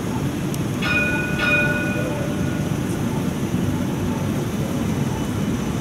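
CAF streetcar's warning bell rings twice about a second in, two clear dings a half-second apart that fade out, over a steady low rumble.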